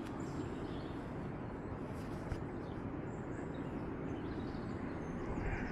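Steady rushing rumble of a distant weir with a heavy volume of floodwater pouring over it, with a few faint bird chirps.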